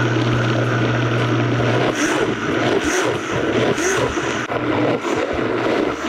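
Vitamix 5200 blender motor running at full load, chopping tomatillos, serrano peppers and cilantro into salsa verde. A steady hum for about two seconds, then a rougher, uneven churning as the contents break up.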